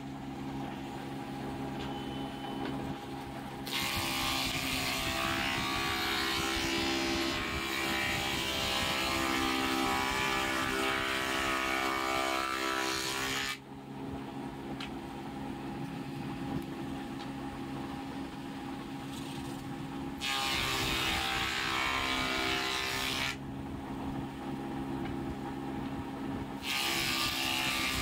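Wood planer machine's spindle spinning a raised-panel cutter bit, its motor humming steadily, while a board fed along the fence is shaped in long, loud cutting passes. The cutting comes and goes about three times, with the machine running free and quieter between passes.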